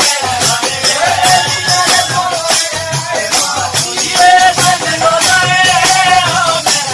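Live Pahari Nati folk music: a group singing over a rope-tensioned barrel drum and a frame drum beating a steady rhythm, with hand clapping.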